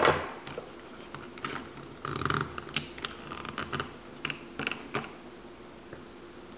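Hard plastic Mr. Potato Head toy parts clicking and knocking as arm pegs are pushed into the holes of a plastic toy car: scattered small clicks and knocks, the loudest at the very start, with a brief rustle of handling about two seconds in.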